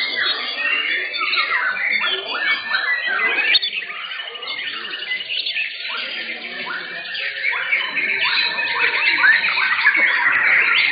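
Several caged white-rumped shamas (murai batu) singing at once in a songbird contest: a dense, overlapping tangle of rapid whistles and chirps. The song thins a little about four seconds in and builds again toward the end.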